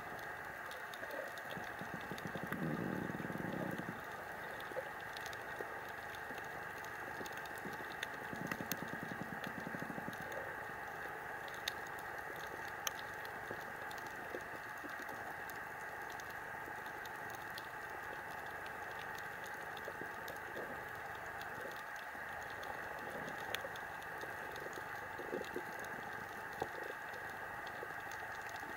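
Underwater coral-reef ambience: a steady hiss with a constant irregular crackle of sharp clicks, typical of snapping shrimp on a reef. Two short low gurgling stretches come about two seconds in and again around eight seconds.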